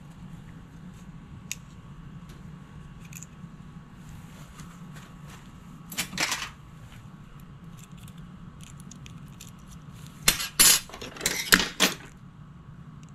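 Small metal parts and tools clinking and rattling on a workbench during carburetor reassembly: a few light clicks, a short rattle about six seconds in, and a louder burst of clattering near the end, over a steady low hum.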